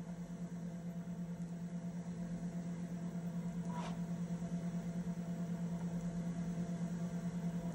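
Steady low hum from the training program's playback on a vintage audio-visual cartridge player, with a fast even flutter in level, in a pause between narrated sections. A faint short sound about four seconds in, as the picture changes to a new title card.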